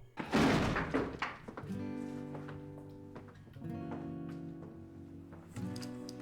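Soft acoustic guitar music: three chords struck about two seconds apart, each left to ring out, after a brief noisy sound in the first second.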